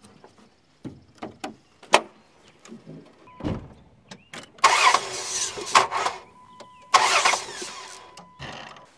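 The hood of a Dodge Dakota pickup being unlatched and raised: a few light clicks, then a heavier thud. Two loud bursts of rushing noise follow, with a faint steady high tone beneath them.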